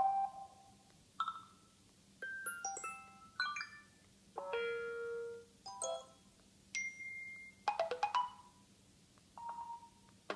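New iOS 7 alert tones previewed one after another: about nine short electronic chimes and jingles, each lasting under a second, with brief pauses between them.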